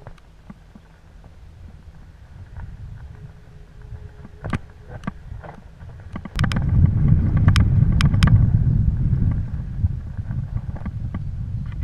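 Mountain bike descending a rocky trail: sharp clacks and rattles from the bike and tyres over loose stones, under a low rumble. About halfway in, a loud low rumble of wind buffeting the microphone sets in suddenly as speed builds.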